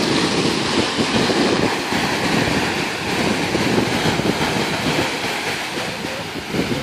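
Small ocean waves breaking and washing up the shore, a steady rushing hiss, with wind buffeting the microphone.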